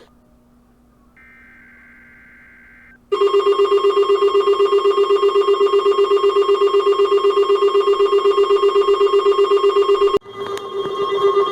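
Weather radio receiver sounding its alert alarm. A faint high tone for about two seconds is followed by a loud, rapid pulsing beep, about ten pulses a second, lasting about seven seconds. Near the end it gives way to the broadcast's steady alert tone.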